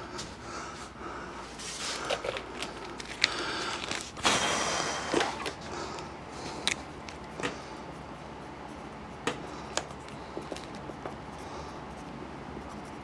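Scattered metallic clicks and clinks of tools and bolts as the top bellhousing bolts come out. About four seconds in, a 3/8-inch impact wrench runs in a short burst of under a second, spinning out a bolt that has already been loosened.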